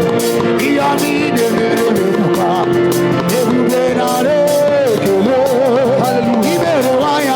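Live gospel band music with a steady drum beat, held chords and a wavering lead melody line.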